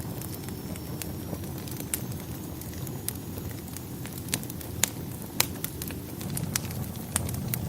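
Wood fire crackling and popping over a low steady rumble, with a handful of sharper, louder pops scattered irregularly through it.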